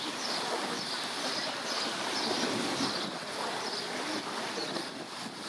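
Water washing against the shore, a steady rush of small waves with some wind.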